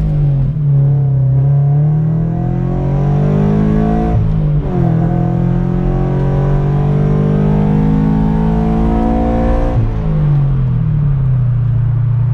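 Subaru BRZ's 2.0-litre flat-four engine pulling hard under full acceleration, its revs climbing steadily through the gears. The revs drop sharply at each upshift, about four and a half seconds in and again near ten seconds, then settle to a steady drone.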